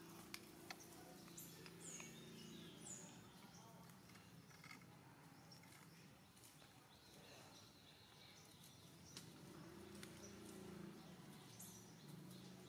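Near silence: faint outdoor ambience with a few brief high, falling chirps in the first few seconds and again near the end, a few light clicks, and a low hum that fades out midway and comes back.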